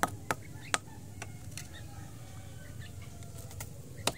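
Sharp clicks and pops as engorged ticks are crushed against a concrete surface: three in the first second, a few fainter ones in between, and more near the end.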